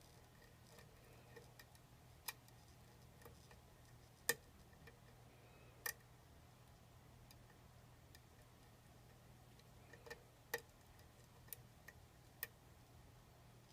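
Lock pick working the pin stack inside a pin-tumbler lock: about eight short, sharp metallic clicks at irregular intervals, the loudest about four seconds in, over a faint steady hum.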